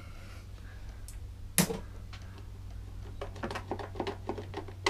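Plastic air filter box being worked off a petrol lawnmower engine by hand: one sharp plastic click about one and a half seconds in, then a run of small clicks and rattles near the end.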